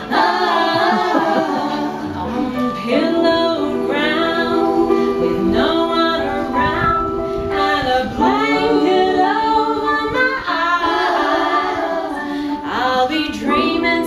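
Women's vocal group singing in harmony: backing voices hold notes under a lead voice, in phrases with short breaks between them.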